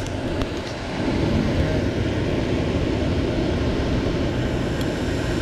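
HVAC equipment running: a steady hum and rush with a strong low rumble, and a few faint clicks.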